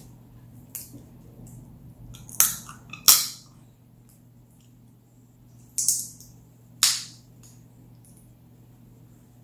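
Shrimp shell cracking and crackling as it is peeled apart by hand, close to the microphone: four short, sharp crackles in two pairs a few seconds apart.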